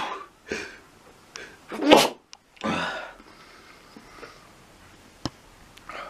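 A person sneezing: one sharp, loud sneeze about two seconds in, followed straight away by a longer breathy burst, with fainter breaths around it.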